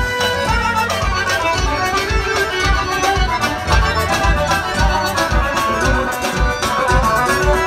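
Traditional folk dance music with a melody over a steady low beat, about two beats a second.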